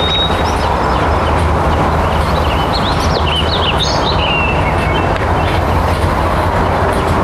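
Outdoor background noise, a steady hiss with a low hum under it. A few birds chirp briefly about halfway through.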